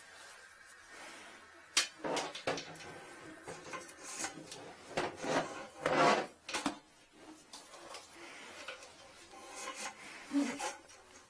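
Ribbed flexible hose rubbing and scraping against a porcelain toilet bowl as it is worked into the drain by gloved hands, in irregular bursts, with a sharp knock about two seconds in.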